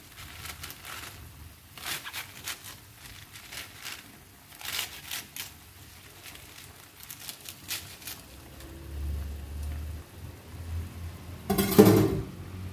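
Fresh napa cabbage leaves being torn and snapped by hand, a string of short crisp crunches over a pan of boiling water. A brief louder clatter comes near the end.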